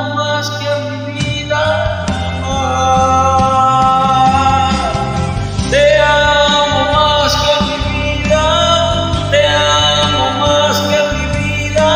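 A slow Christian worship song playing as a karaoke backing track, with a sung vocal line holding long notes over it.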